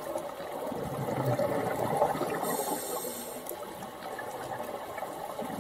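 Underwater sound of a scuba diver breathing through a regulator: a bubbling, gurgling exhalation noise, with a hissing inhalation for about a second around the middle.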